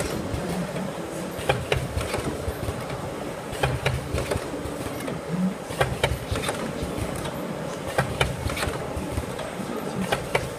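HPD 250 single-pad wet-wipe packing machine running: a steady mechanical clatter with sharp clicks every second or so.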